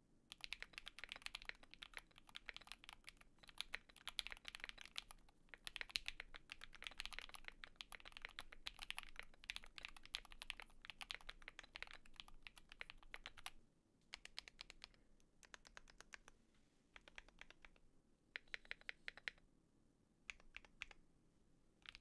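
Typing on a Luminkey Magger 68 HE Hall effect keyboard, its switches, plate and PCB dampened with layers of silicone: soft, quiet keystrokes in a fast steady run, then sparser bursts of keystrokes with short pauses in the last third.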